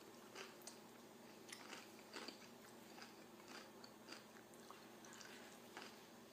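Faint close-up chewing of tortilla chips: a scatter of short, soft crunches and mouth clicks.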